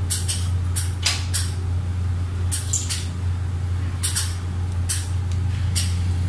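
Short swishing rustles of bed linen being handled on a hospital bed, about a dozen brief strokes at uneven intervals, over a steady low hum.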